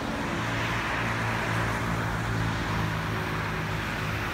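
Jet airliner engines on the takeoff roll, heard from a distance as a steady roar with a low hum beneath it.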